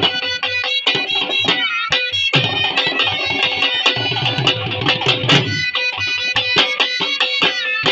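A pair of shehnai reed horns playing a wavering melody together over two dhol drums beaten with sticks in a quick, steady rhythm. The drumming thickens into heavier low rolls around the middle.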